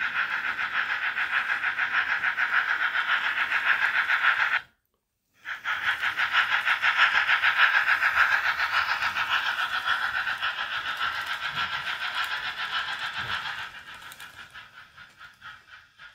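H0 model steam locomotive running, with a fast, even chuffing rhythm and hiss. The sound cuts out completely for under a second about a third of the way in, then carries on and falls away to a faint patter near the end.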